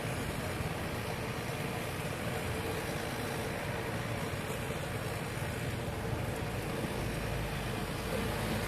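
Steady traffic and road noise from moving vehicles, with no horn sounding. Wind buffeting the microphone grows stronger near the end.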